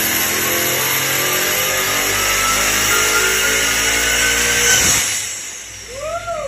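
A freshly rebuilt engine held at high revs, its pitch climbing slowly, then the throttle released about five seconds in so the revs fall away, followed by one short blip of the throttle near the end.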